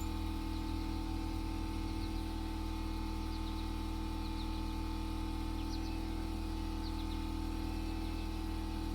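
A machine motor running steadily with a constant low hum. Birds chirp faintly a few times over it.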